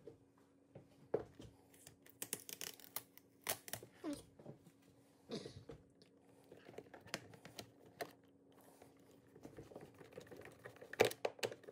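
Hand screwdriver turning screws into the plastic hinge bracket of a refrigerator door flipper assembly: irregular small clicks and scrapes of metal bit and plastic, with a louder cluster of clicks near the end.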